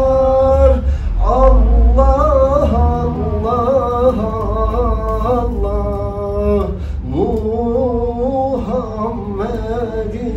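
Unaccompanied male voice singing a Turkish gazel: long held notes with wavering ornaments, in a few phrases broken by short breaths.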